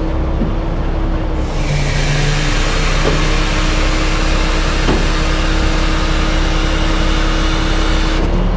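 Heavy-duty tow truck's diesel engine running steadily at idle. About a second in, a loud, steady hiss joins it and cuts off suddenly near the end.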